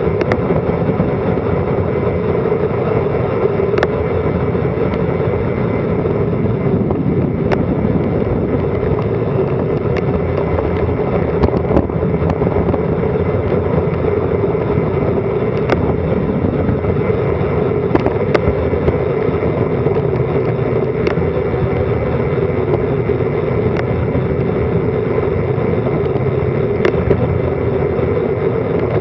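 Wind and road noise on a bicycle-mounted action camera's microphone during a fast downhill ride, a steady roar with a dozen or so sharp clicks scattered through it.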